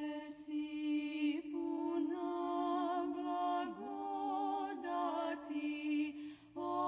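Background music: a sung vocal chant, its voice lines wavering on held notes above a steady sustained drone note, with a brief break near the end.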